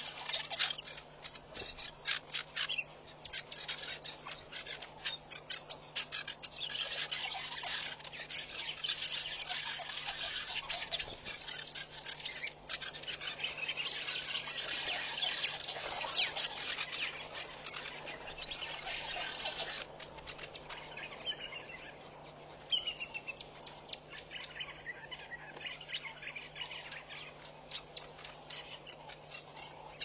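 Dense chorus of insects and small birds chirping, busiest through the first two-thirds and thinning out about twenty seconds in. A couple of short falling bird whistles follow soon after.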